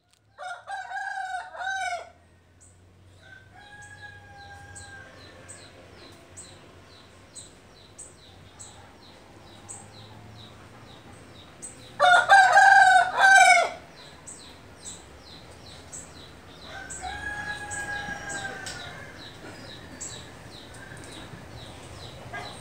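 Roosters crowing: two loud, close crows, one at the very start and one about twelve seconds in, with fainter crows from farther off in between. Behind them a steady series of short high chirps repeats roughly every two-thirds of a second.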